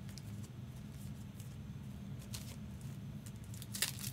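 Faint rustling and light clicks of trading-card packs and cards being handled, over a steady low hum, with a sharper crinkle near the end.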